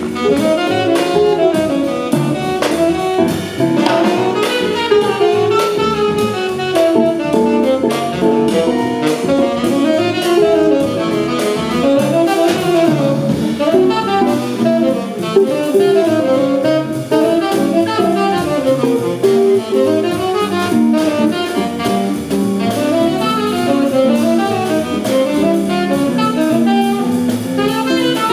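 Small jazz combo playing an instrumental passage: a saxophone carries a moving melodic line over a rhythm section of piano, double bass and drum kit keeping a steady swing.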